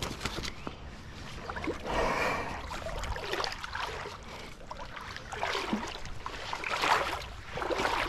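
Water sloshing and splashing in uneven surges as someone wades through a shallow creek.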